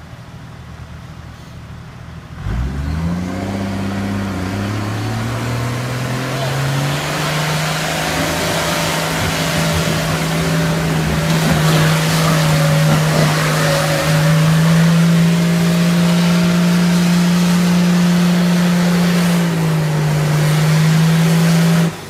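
Electric winch on an off-road 4x4 starting about two and a half seconds in. Its motor spins up within half a second into a loud, steady whine that holds its pitch under load, stepping slightly up and down as the pull changes, while the vehicle is hauled up a steep slope. It stops abruptly at the very end.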